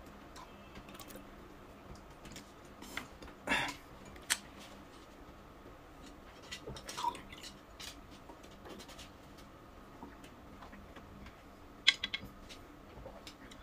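Quiet room with a few scattered soft clicks and taps from small handling noises. The loudest is a short noisy sound about three and a half seconds in, and there is a quick cluster of clicks near the end.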